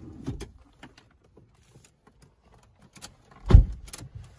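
Light clicks and small rattles of a driver handling the key and controls inside a car's cabin, with one heavy thump about three and a half seconds in.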